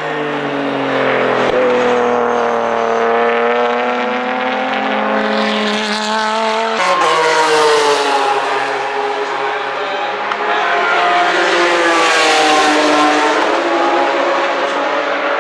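Race car engines revving hard as the cars pass, among them a white BMW touring car. The engine note climbs with the revs, drops abruptly about seven seconds in, climbs again, and falls away near the end.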